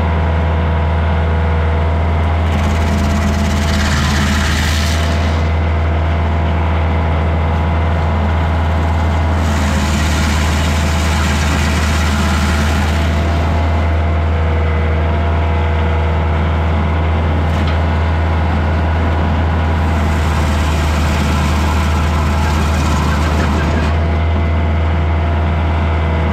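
Kioti DK40se tractor's diesel engine running steadily under load, driving a Woodland Mills WG24 PTO stump grinder whose gearbox gives a steady whine. Three spells of louder hissing grinding come about 3, 10 and 20 seconds in, as the cutter wheel chews pine stumps down to ground level.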